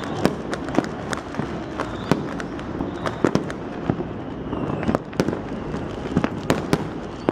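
New Year fireworks and firecrackers going off all over the city: a steady din of distant crackling and popping, cut by irregular sharp bangs, several of them close together in quick pairs.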